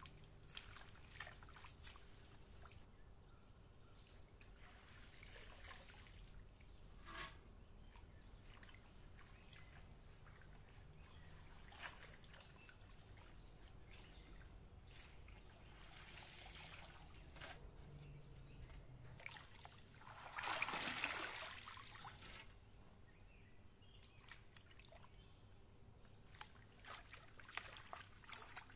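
Faint splashing and trickling of water as bunches of fresh mint and dragonhead are swished and pressed by hand in a large aluminium basin of water, with one louder splash and pour about two-thirds of the way through.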